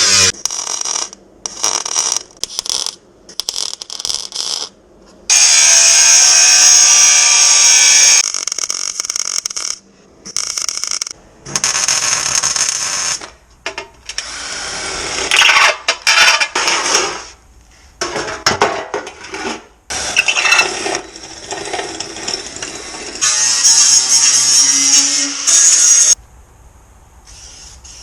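Power tool cutting sheet-steel offcuts in repeated stop-start bursts, a loud high whine each time, with one longer cut of about three seconds; it stops about 26 seconds in.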